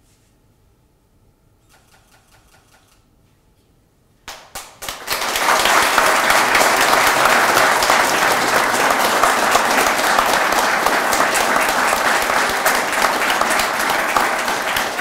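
Audience applauding, breaking out about four seconds in after a quiet moment and going on steadily.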